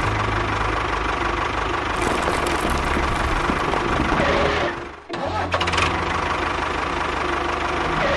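A small motor running steadily, with a low even hum. It cuts out suddenly about five seconds in and starts running again a moment later.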